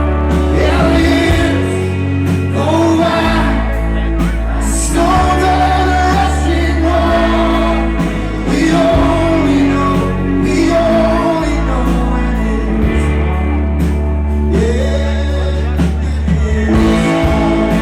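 A live rock band playing, with a voice singing a melody over guitars and sustained bass notes.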